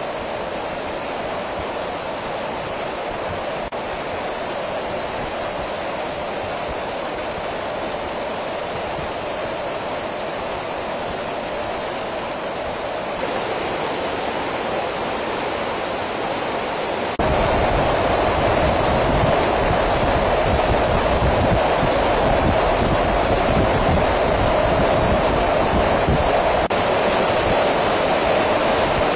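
Steady roar of rushing wind and engine noise heard aboard an aircraft in flight, with no distinct events; it steps up louder twice a little past the middle.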